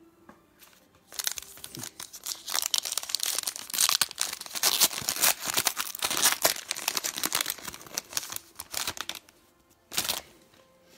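A trading card pack's wrapper being torn open and crinkled by hand. It is a dense crackling run that lasts about eight seconds, followed by one more short crinkle near the end.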